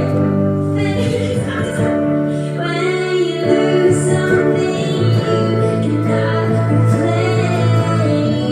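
A pop song with a woman singing a sustained melody over a steady backing.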